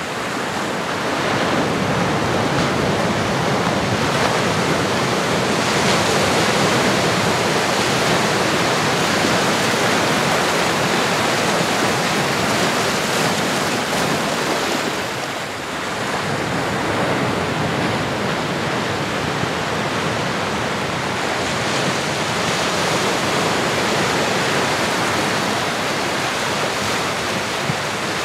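Ocean surf: a continuous wash of waves, easing briefly about halfway through.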